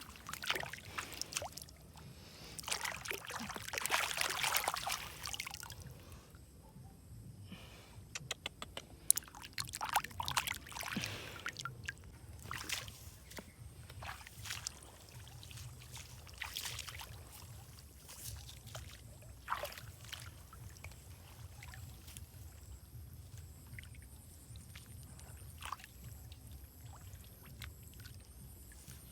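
Shallow water sloshing and splashing, being stirred and scooped while searching for fish, with a louder stretch of splashing about three to five seconds in and scattered small knocks and drips throughout.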